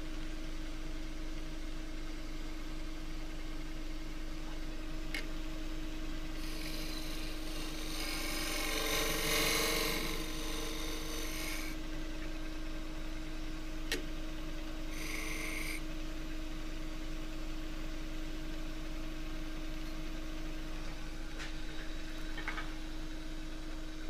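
Wood lathe running steadily with a motor hum while a turning tool cuts beads into the outside of a spinning green casuarina bowl. The cut sounds for about five seconds from around six seconds in, with a second short cut a few seconds later.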